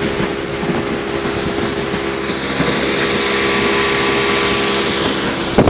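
A 60 hp outboard motor running steadily at speed, pushing a small boat across a lake, with the rush of wind and water over it.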